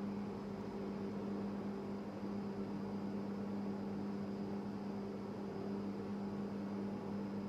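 A steady low hum with fainter overtones over a constant hiss, unchanging throughout: the room tone of the recording.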